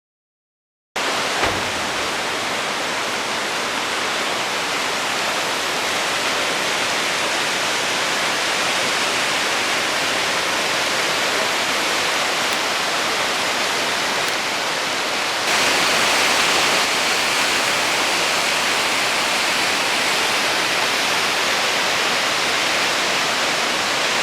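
Steady rushing of flash-flood water pouring down the rock walls as a muddy waterfall. It starts abruptly about a second in and gets louder about two-thirds of the way through.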